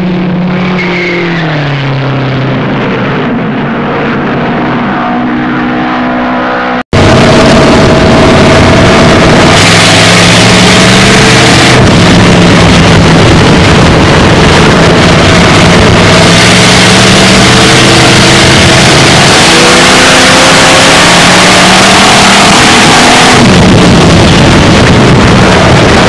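Dirt-track stock car engine heard from inside the car, loud, its pitch rising and falling as it is driven around the track, over heavy wind and track noise. For the first seven seconds or so, a duller-sounding engine slows down, then the sound cuts abruptly to the in-car engine.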